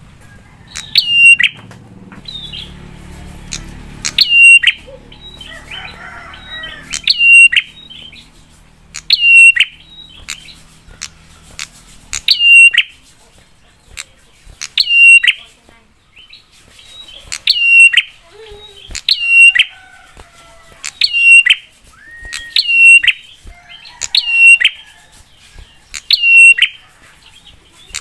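A prenjak (prinia) repeats a short, sharp call that drops and levels off, about once every one and a half to two seconds. It keeps up the same fast, insistent pattern throughout.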